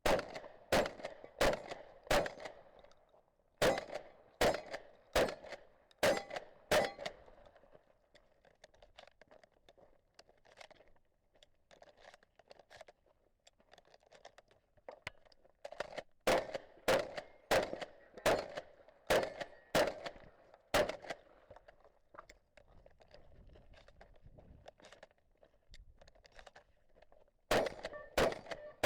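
Benelli Supernova pump-action shotgun fired in quick strings, about one shot every 0.7 s with the action pumped between. About nine shots come first, then a long stretch of faint clicks and clatter, about seven more shots, and a fast burst of four near the end.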